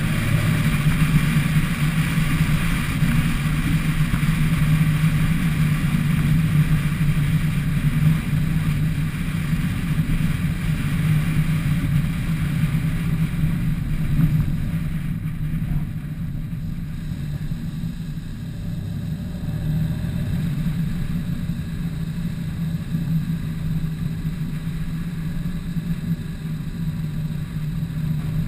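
Car driving along, heard from a camera on its roof: a steady low engine drone with road and wind noise, easing a little about halfway through.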